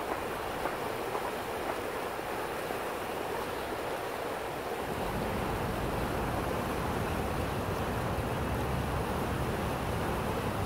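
Boulder Creek running high at about 344 cfs, its water rushing steadily over rocks and riffles. About halfway through, a low rumble of wind on the microphone joins the rush.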